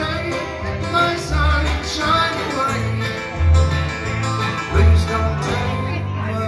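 Live bluegrass string band playing an instrumental passage with no words sung: strummed acoustic guitar, rolling banjo and low held notes from a cello played as the bass.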